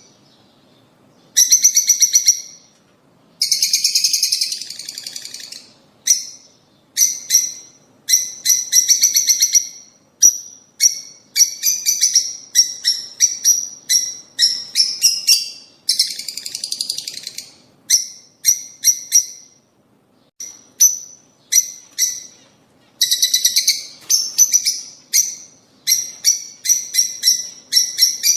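Lovebirds chirping: quick runs of sharp, high chirps in bouts separated by short pauses, with three longer harsh chattering stretches.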